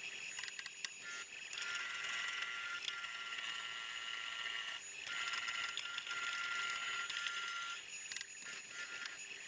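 High-pitched whine of a power tool working on metal, in long passes that break off briefly about five seconds in and again near eight seconds, typical of wire-wheeling or abrading rust off vise parts.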